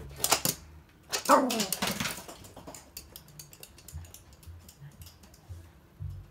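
Toy poodle barking briefly in the first two seconds, the last call falling in pitch. Then many light clicks of dog claws on a hard floor as the dogs walk.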